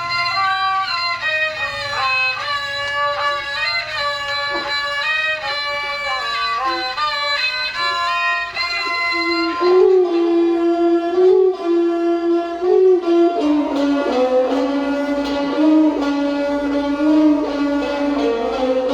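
Thai classical overture (hom rong) played on bowed string instruments: a continuous gliding melody in a high register that drops to a lower register about ten seconds in, with more than one line sounding together near the end.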